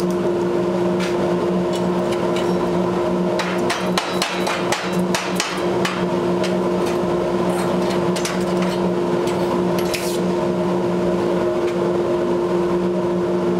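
Sharp metallic clicks and knocks as a freshly plasma-cut 3/8-inch 316 stainless steel flange is pried loose and lifted from its plate with locking pliers, mostly in the first two-thirds, over a steady machine hum.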